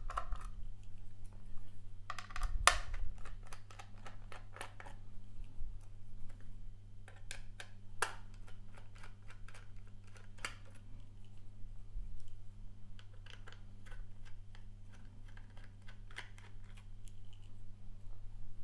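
Irregular clicks, taps and light scraping from screws being undone from a 2.5-inch SSD's aluminium case with a small screwdriver and the parts being handled.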